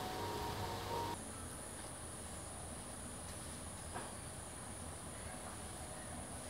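Insects keep up one steady, high-pitched drone that starts suddenly about a second in; before it there are a few faint ringing tones.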